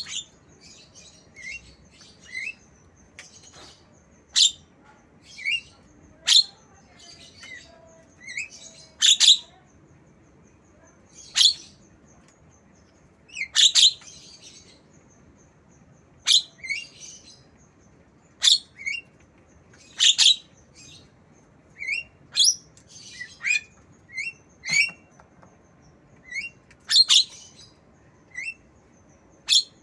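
Javan myna giving short, shrill chirps and squeaks in imitation of a lovebird, about one every one to two seconds, irregularly spaced, some with a quick falling note.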